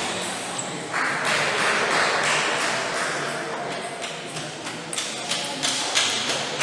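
Table tennis hall between rallies: a swell of background noise about a second in, then a few sharp ticks of table tennis balls striking bats and tables toward the end.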